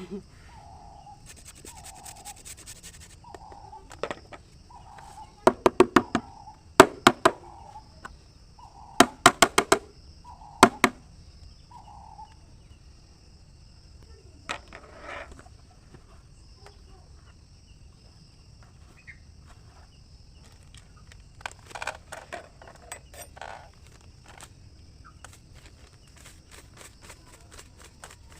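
Carrots grated on a hand grater's small holes, heard as clusters of quick sharp scraping strokes in short runs, over a steady high-pitched insect drone.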